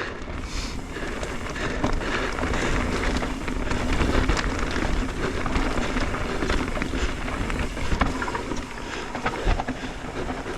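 Mountain bike rolling over a rough dirt-and-rock trail: steady tyre noise with frequent small clatters and knocks from the bike, and wind on the microphone.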